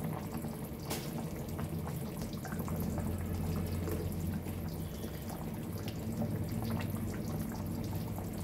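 Thick chicken curry simmering in a pan on a gas stove: small wet pops and bubbling as it is stirred with a spatula, over a steady low hum, with a sharper click about a second in.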